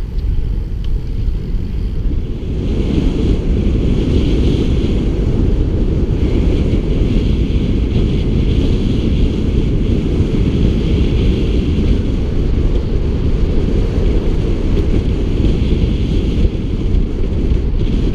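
Wind rushing over the microphone of a camera carried by a road cyclist riding at speed: a steady, loud rumble that grows louder about two seconds in.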